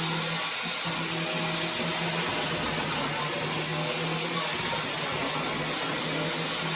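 Electric grinder with a 60-grit abrasive running steadily, grinding a tar-like coating off the sheet-metal trunk floor down to bare metal. A steady motor hum under a loud hiss, the hum breaking off briefly a few times.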